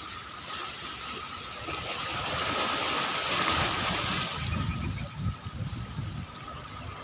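Steady rushing outdoor noise of sea water lapping at a rock seawall mixed with wind, with gusts buffeting the microphone about four to six seconds in. A faint steady high whine runs underneath.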